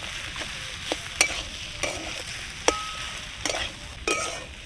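Metal spatula stirring and mashing a vegetable chop filling of beet, potato and carrot in a metal wok over heat, with a low sizzle and about six sharp clinks of spatula on wok, some ringing briefly. This is the filling being cooked dry before the chops are shaped.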